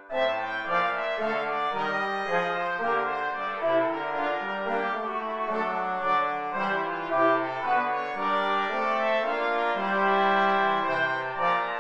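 Brass quartet of two trumpets and two trombones playing a slow-moving, many-voiced chorale-like passage, a low bass line stepping under higher held and moving notes. The music breaks off for an instant at the very start and comes straight back in.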